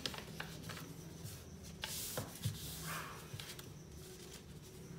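A sheet of paper being folded and creased by hand on a wooden tabletop: soft rustling and rubbing with a few short crinkles and taps, the loudest crinkle about two seconds in.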